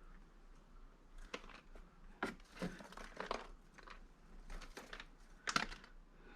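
Faint, scattered clicks, knocks and rustling from scrap motor parts and stripped copper being handled, with two sharper knocks about two seconds in and again near the end.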